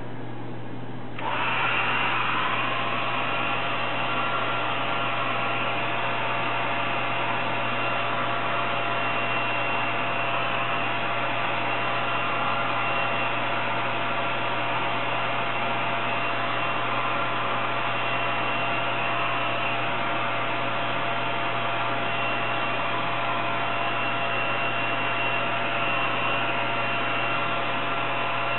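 Handheld hair dryer switched on about a second in and blowing steadily with a faint whine, drying fresh paint on the jeans.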